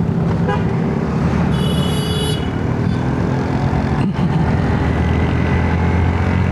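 Motorcycle engine running steadily on a climb, with a short vehicle horn toot about one and a half seconds in, lasting under a second.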